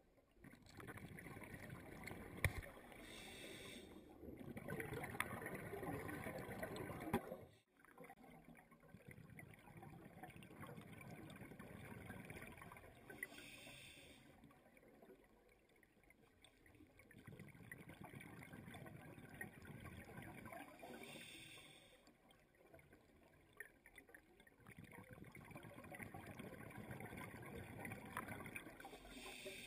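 A scuba diver breathing through a regulator underwater. A short hiss on each inhale alternates with a longer bubbling rush of exhaled air, repeating every several seconds.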